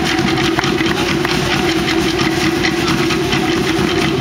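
Fast, continuous Polynesian drumming: a rapid, even roll of strikes that carries on without a break.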